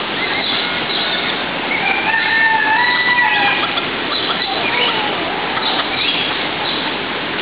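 Dense chorus of many birds calling at once: overlapping whistled chirps and short rising and falling notes over a steady rushing hiss.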